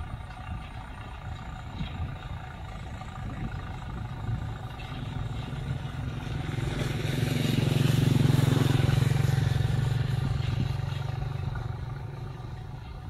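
Tractor's diesel engine running steadily, growing louder about halfway through and easing off near the end.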